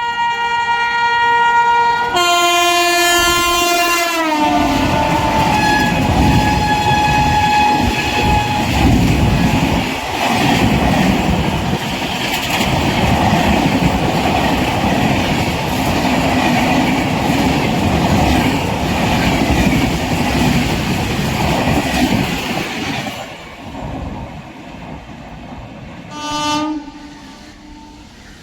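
An Indian Railways WAP-7 electric locomotive's horn is held as an express train runs through the station at speed, its pitch dropping as the locomotive passes about four seconds in. The coaches then rumble and clatter over the rail joints for nearly twenty seconds before fading. A short horn blast sounds again near the end.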